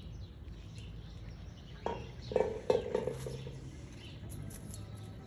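Steady outdoor background noise with faint high bird chirps. About two seconds in come a few sharp knocks and a brief low pitched sound.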